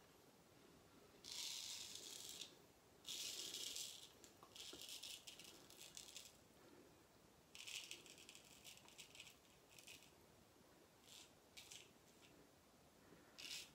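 Straight razor scraping through lathered stubble in a run of strokes, a dry crackling rasp: about three long strokes in the first half, then a few shorter ones near the end. This is the second pass of a wet shave.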